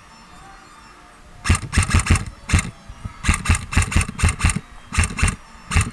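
Airsoft rifle firing in short rapid bursts: clusters of sharp cracks, starting about a second and a half in and repeating several times.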